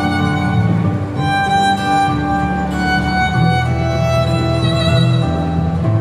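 Solo violin playing a slow melody in long, held notes over a low accompaniment.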